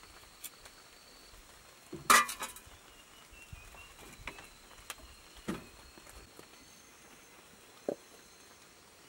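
Machete blade cutting slices off a root into a metal pot: scattered light knocks and clinks, the loudest a sharp clink about two seconds in.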